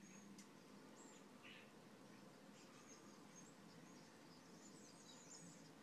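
Near silence with faint, scattered high-pitched chirps from a flock of American robins feeding on the ground, and a faint low hum underneath.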